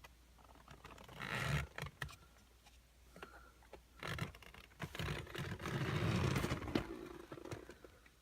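Hands working on a car's wiring harness and plastic dash parts: rustling, scraping and sharp little clicks of connectors and clips, in a short burst about a second in and a longer spell from about four seconds in.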